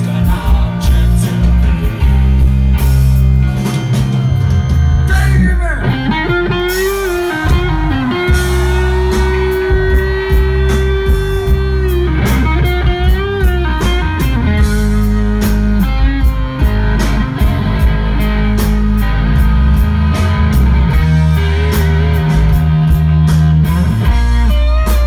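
Live rock band playing a slow blues with no vocals. An electric guitar leads over bass and drums with long bent notes that waver, one of them held for several seconds about a third of the way in.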